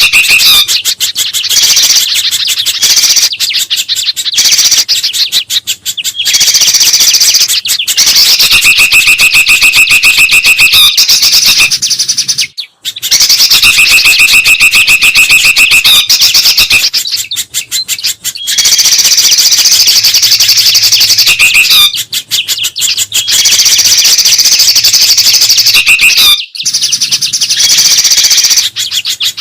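Bird-lure recording of a noisy mix of songbird calls: loud, fast chattering and trills in phrases that repeat, with a few held whistles and brief pauses.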